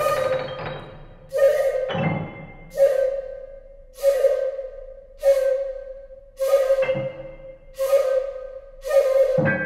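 Background music: a shakuhachi sounding the same note again and again, roughly once a second, each note starting with a breathy attack, with a low drum beat three times.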